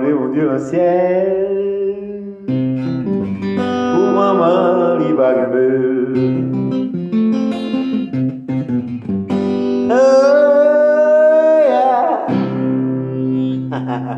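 A man singing to his own playing on a cutaway acoustic guitar, with held, wavering sung notes over the guitar. One long note starts about ten seconds in and lasts about two seconds.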